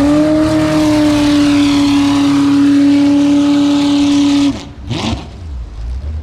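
Jet boat's V8 engine held at high, steady revs with one unwavering note, cutting off abruptly about four and a half seconds in. A short rising rev follows about a second later.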